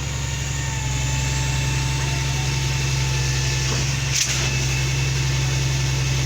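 Mobile concrete pump's engine running steadily with a low, even drone during a column pour, with a short sharp click about four seconds in.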